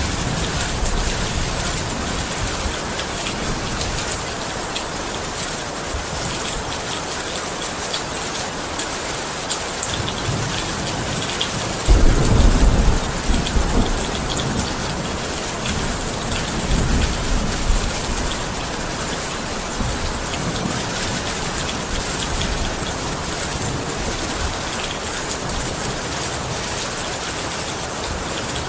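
Steady rain falling, with a low rumble of thunder about twelve seconds in and a weaker rumble around seventeen seconds in.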